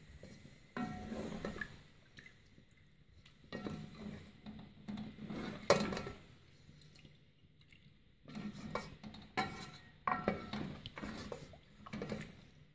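A black ladle stirs thick spinach-and-meat curry in an aluminium cooking pot, scraping and knocking against the pot with a wet sloshing. It comes in three bouts, with the loudest knock near the middle.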